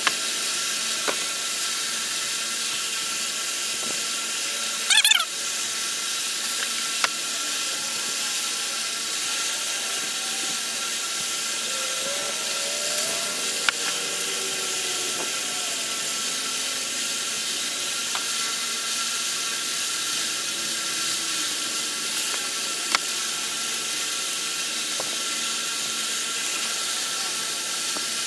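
Gloved hands wiping down a bare engine block: a few light clicks and a short, wavering squeak about five seconds in, over a steady hiss.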